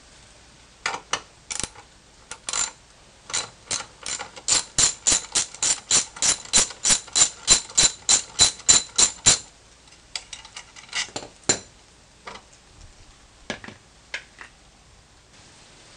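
Ratchet wrench with a socket clicking as it backs out the screws of a GY6 scooter's CV transmission cover. A few scattered clicks, then a steady run of about three sharp clicks a second for several seconds, then scattered clicks again.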